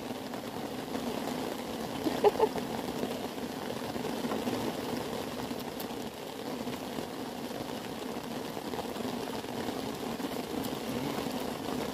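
Bottle-fed lamb suckling milk from a feeding bottle: a steady run of sucking and slurping, with a short louder sound about two seconds in.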